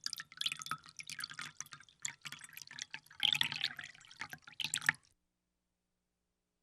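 Water splashing and dripping in quick, irregular splashes for about five seconds, stopping abruptly.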